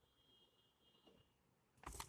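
Near silence with a faint, steady high-pitched tone for the first second and a half, then a sudden rustle of packaging being handled near the end.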